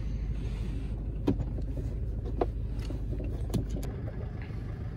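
Inside a stationary car: a steady low engine hum with three sharp clicks, about a second apart. The low hum drops away about four seconds in.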